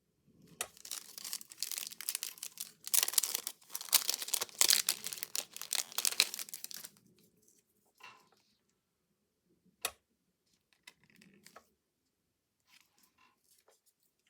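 Crinkly craft materials being handled: dense rustling and crinkling for about seven seconds, then one sharp click about ten seconds in, followed by a few faint taps and rustles.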